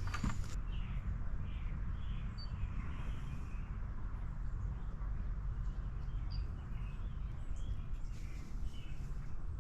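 Several songbirds chirping and calling in short scattered notes over a steady low outdoor rumble, with a footstep or two in the first moment.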